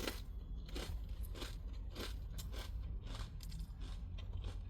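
Doritos tortilla chips being chewed close to the microphone: crisp crunches, about two a second, at an uneven pace.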